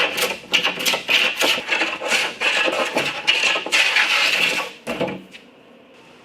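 Quick, scraping strokes of a metal hand tool working wood, about two to three a second, that stop about five seconds in.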